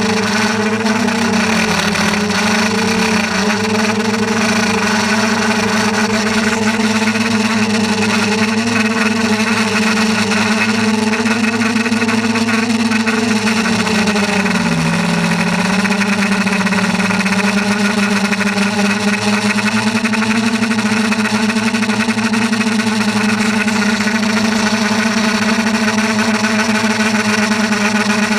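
Steady motor hum with a clear pitch and overtones, dipping briefly in pitch twice, about two seconds and about fifteen seconds in.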